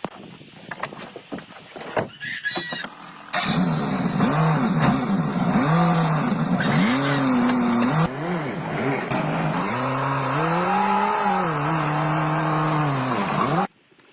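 Truck engine running and being revved up and down in repeated swells, loud and steady, after a few seconds of scattered clatter; it cuts off abruptly near the end.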